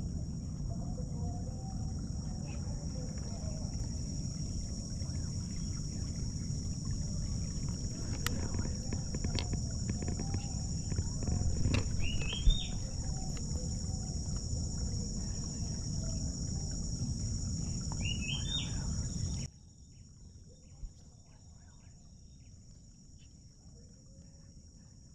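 Steady high-pitched drone of insects over a low rumble, with two short rising bird chirps, one about halfway and one several seconds later. About three-quarters of the way through everything drops abruptly to a faint hush.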